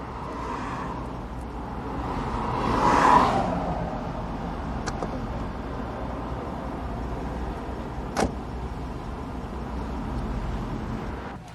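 Cars on the road: a steady engine and road rumble, with a vehicle swelling past about three seconds in. A sharp click follows a little after eight seconds.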